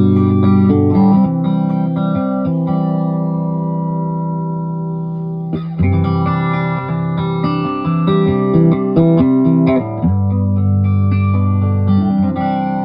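Electric guitar played through a freshly repaired A/DA Flanger effect unit: chords struck and left to ring, with quicker picked notes between them.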